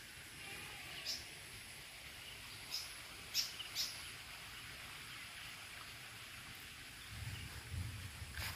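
A few short, high bird chirps, scattered and loudest about three and a half seconds in, over a steady high hiss of outdoor ambience. A low rumble rises near the end.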